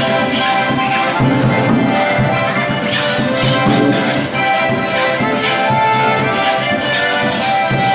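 Two diatonic button accordions playing a lively tune together over a steady scraped rhythm, in the rake-and-scrape style.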